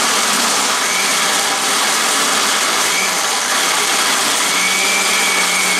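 Countertop blender running steadily, its blades churning ice with fruit and juice into a frozen daiquiri slush. A steady motor whine stands out near the end.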